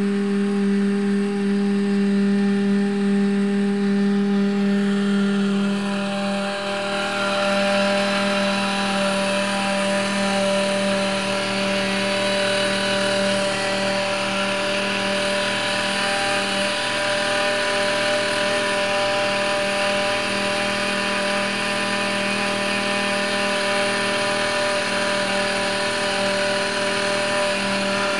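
Homemade outboard driven by an electric wood-router motor, running at a steady pitch with a high whine. About six seconds in, a broad rushing hiss joins it and holds.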